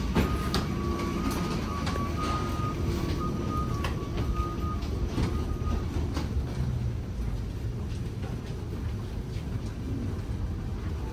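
Rolling suitcase wheels and footsteps on a jet bridge floor: a steady low rumble with scattered clicks and knocks. A faint broken high tone runs through the first half.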